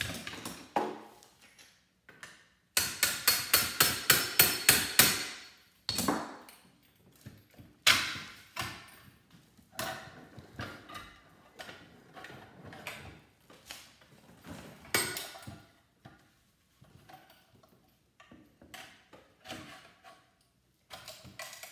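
Hammer driving a screwdriver to pop the steel top cover off a microwave magnetron clamped in a vise. About three seconds in comes a quick run of sharp metal-on-metal strikes, about four a second, followed by scattered single blows and lighter clinks and scraping of metal.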